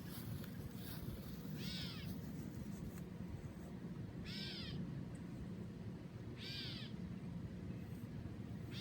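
A bird calling, a short call that drops in pitch, given three times at roughly two-second intervals, with a fourth starting at the very end, over a steady low rumble.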